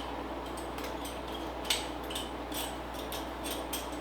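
A quick, irregular string of light clicks and scrapes: backsplash tile pieces being handled and set against the wall.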